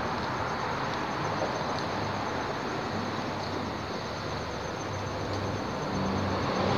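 Steady rumble of traffic on the highway bridge overhead.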